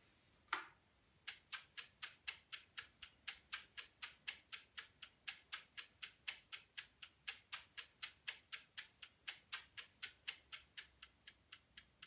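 Relays of a home-built relay computer clicking in a steady, even rhythm, about four clicks a second, as it runs a program from memory with its clock at 2 Hz. A single click comes about half a second in, before the regular clicking starts.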